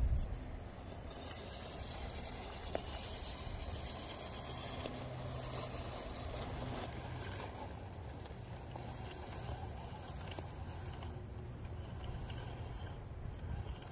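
1/10-scale RC rock crawler on an Injora full-metal chassis with a forward-mounted gearbox, crawling slowly over rock and gravel: a low, steady hum from its electric motor and gears, with its tyres scrabbling on grit.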